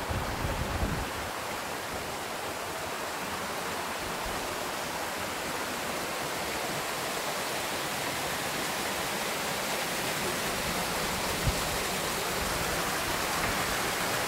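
Meltwater stream rushing and splashing down over rocks in a small cascade: a steady rush of water that grows slightly louder toward the end.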